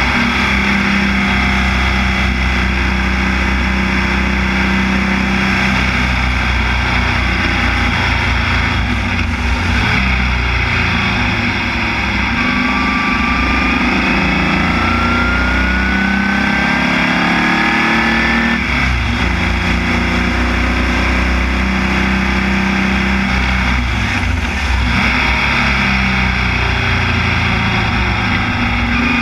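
Formula Vee racing car's air-cooled Volkswagen flat-four engine at racing speed. Its note climbs with the revs and drops sharply at three gear changes, about ten, eighteen and twenty-four seconds in.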